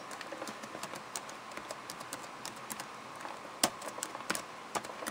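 Typing a password on a computer keyboard whose I key is faulty: a run of quick, light key clicks, with two harder strokes in the second half.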